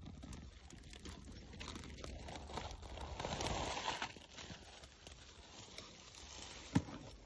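Rustling noise over a steady low rumble, growing louder for a second or so a few seconds in, with a single sharp click near the end.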